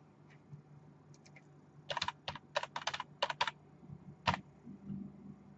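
Typing on a computer keyboard: a quick run of about nine keystrokes from about two seconds in, then a single keystroke a little after four seconds.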